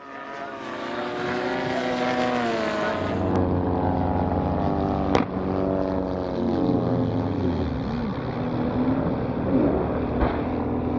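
Model aircraft propeller engines running at flying speed, their pitch rising and falling as the planes pass and change throttle. A single sharp crack about five seconds in, as two models collide in mid-air.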